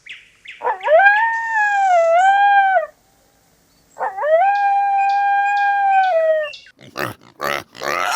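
A dog howling: two long, drawn-out howls with a slight waver in pitch, each lasting two to three seconds, separated by a short pause. Near the end come a few short, rough noises.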